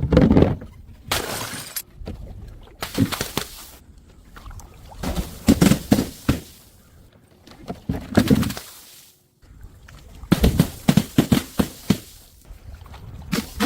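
A series of separate crashes and impacts from objects being dropped and smashed, one after another, some as a cluster of several quick hits. There is a brief break near the middle.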